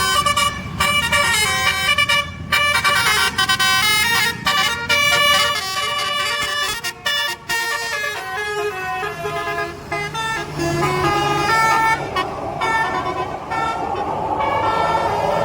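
Bus multi-tone melody horn ('telolet basuri') playing a quick tune of stepped notes over the bus's running engine. The notes thin out after about ten seconds as a broad hiss grows.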